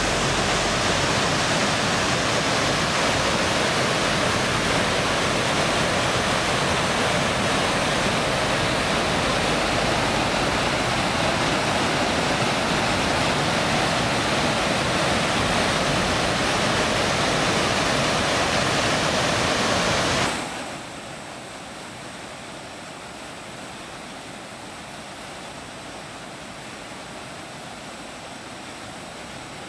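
Steady rush of a waterfall and rapids pouring over rocks. About two-thirds of the way through it drops suddenly to a quieter, softer rush.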